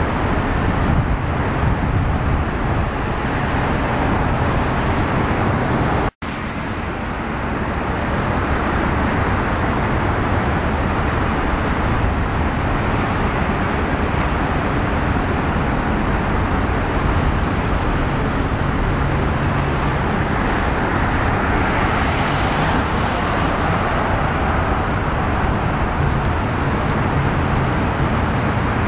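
Steady road traffic noise, a dense rush of tyres and engines. It cuts out for an instant about six seconds in, and the hiss swells briefly around twenty-two seconds in.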